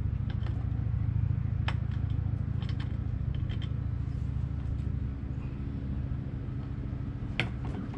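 Light metallic clicks and ticks as a snowblower engine's recoil starter is bolted back on by hand, with one sharper click near the end. Under them runs a steady low drone that drops somewhat about five seconds in.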